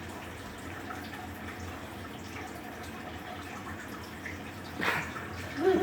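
Steady low hiss of background noise, with a brief noisy burst about five seconds in and a short pitched vocal sound just after it, near the end.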